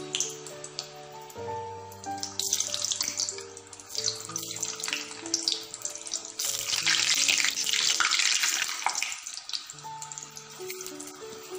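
Frozen, par-fried potato sticks sizzling and bubbling in hot oil in a deep kadai as they are dropped in one by one; the sizzle swells, loudest past the middle. Background music with a steady melody plays underneath.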